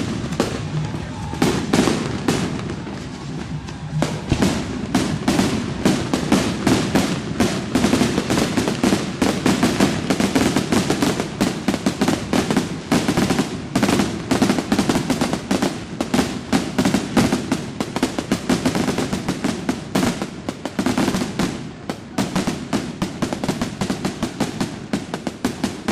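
Fireworks going off in rapid, unbroken succession: many sharp bangs and cracks a second.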